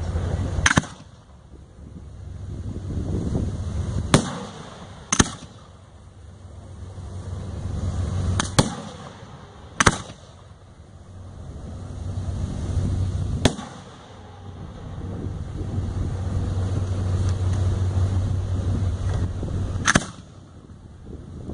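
Aerial display firework shells going off: seven sharp bangs at uneven intervals, two of them about a second apart, with a low rumble swelling between them.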